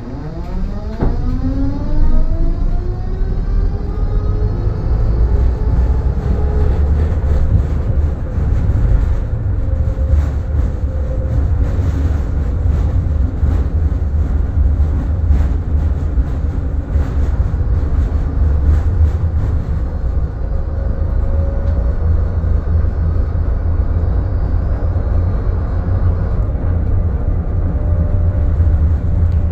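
Tatra KT4Dt tram pulling away: its traction motor whine rises in pitch over the first few seconds, then settles into steady running over a low rumble of wheels on rails.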